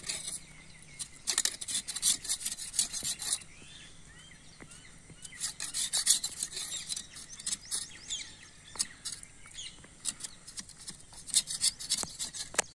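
A machete blade scraping and shaving down a long wooden stick, in three runs of quick strokes with pauses between.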